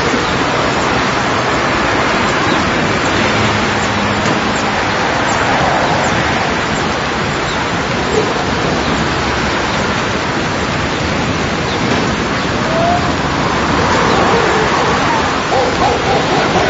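Many spring garden field recordings layered at once into a dense, steady, hiss-like wash of ambient sound. A few small chirps and a short rising tone poke through in the last third.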